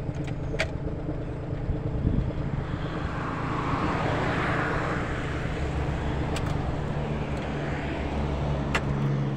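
Car engine idling steadily, heard from inside the cabin. A rushing noise swells and fades about three to six seconds in, with a few light clicks.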